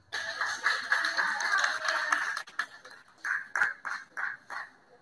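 Small audience applauding, starting suddenly. After about two and a half seconds it thins to a few last scattered claps.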